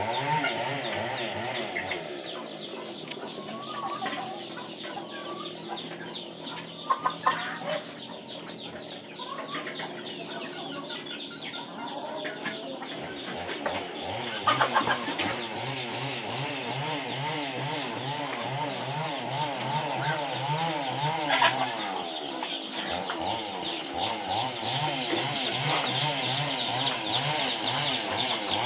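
Chickens clucking amid a mixed flock of chickens, geese and ducks feeding together from a metal basin of wet mash. The pecking and calling is a continuous busy chatter, broken three times by sharp knocks.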